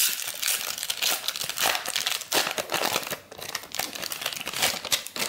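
Foil wrapper of a 1991 Upper Deck football card pack crinkling and tearing as it is ripped open and the cards are slid out, a dense run of irregular crackles.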